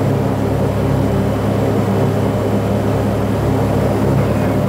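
Saab 340's twin General Electric CT7 turboprop engines and propellers running, heard inside the cockpit as a steady, loud low drone with a stack of even tones that does not change.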